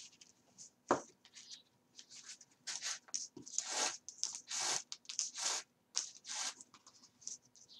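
Thread being drawn through the sewing holes of stacked paper pages by hand: a series of short rasping swishes, with paper rustling and a sharp click about a second in.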